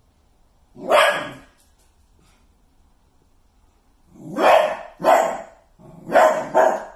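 Dachshund barking: one bark about a second in, then four more in two quick pairs from about four seconds on.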